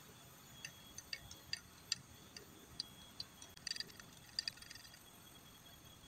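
Faint, irregular crisp ticks and crinkles of a small packet or wrapper being handled and opened in the hands, about a dozen, stopping a little after the middle.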